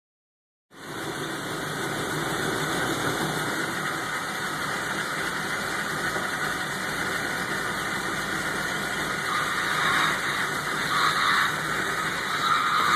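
1972 Chevy K5 Blazer's small-block 350 V8 idling steadily, growing a little louder in short swells from about ten seconds in.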